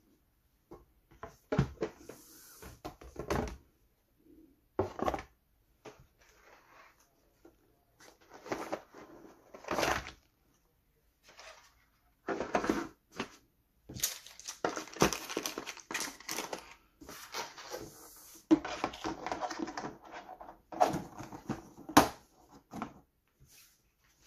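Board game components being handled: a game board and a plastic insert tray knocking, scraping and rustling, in irregular clatters with gaps that come thicker in the second half.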